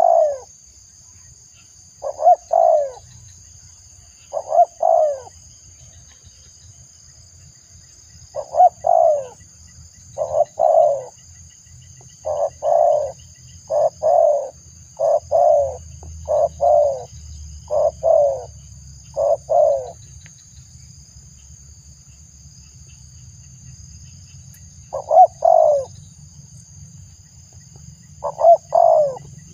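Spotted dove cooing: short repeated coo phrases, about one every second or two, with a pause of several seconds about two-thirds of the way through before the cooing resumes.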